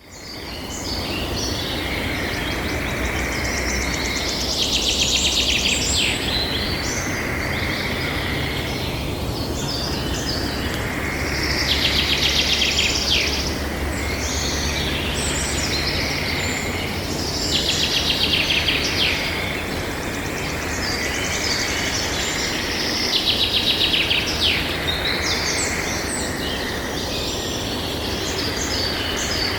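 Several songbirds singing and chirping together, with one bird repeating a loud, fast trill about every six seconds. A steady low rumble of background noise runs underneath.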